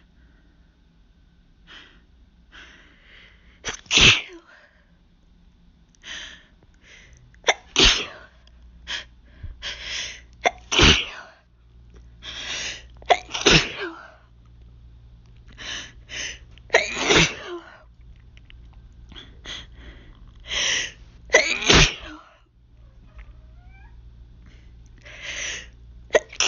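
A woman's hay-fever sneezing fit: a string of about six loud sneezes, a few seconds apart, each preceded by short catching breaths as the next sneeze builds up.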